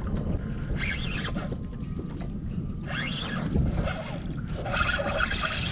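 Wind rumbling and buffeting on the microphone, with fainter, brief higher-pitched sounds now and then.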